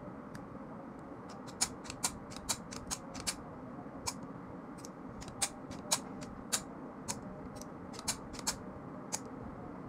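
Sharp metallic clicks and clacks of a 30 bore TT pistol's parts being fitted and worked by hand as the pistol is reassembled: irregular, a couple a second, starting about a second and a half in and stopping near the end.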